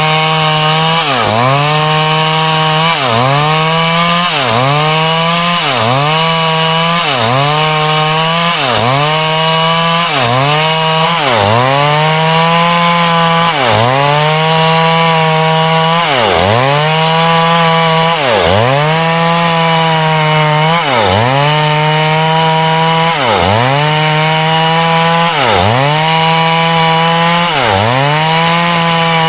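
Stihl chainsaw cutting heartwood lengthwise into frame timber, running at high speed under load. The engine pitch dips sharply and recovers every couple of seconds as the bar bites into the wood.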